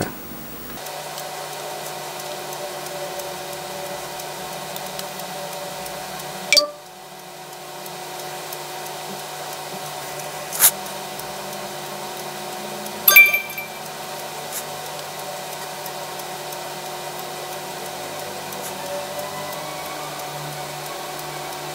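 A steady hum, broken by three short sharp clicks and clinks as a smartphone and its clear plastic case are handled.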